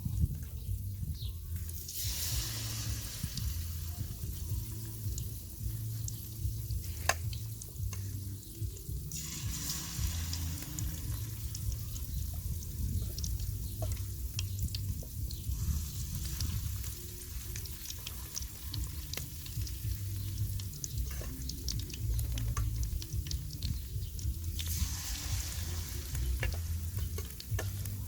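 Chicken thighs frying in hot oil, a steady sizzle that swells louder a few times, with scattered clicks and taps from a utensil.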